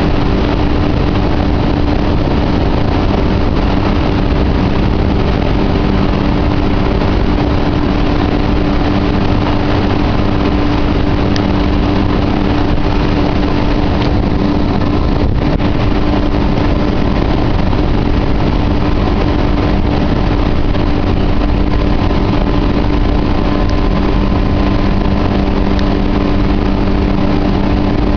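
Yamaha 60/40 jet outboard running at a steady cruising pace, pushing a G3 jet boat along the river: a loud, even engine drone over a constant rush of noise, with no change in speed.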